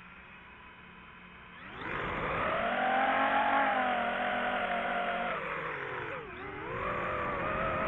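DJI FPV drone's motors and propellers spinning up to a steady whine about two seconds in. The pitch dips sharply and climbs back again about six seconds in.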